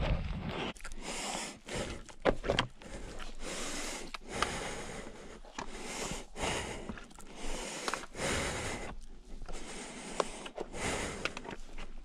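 A person breathing hard while scrambling and scooting down rock, with scuffs and scrapes of hands, shoes and clothing on the stone.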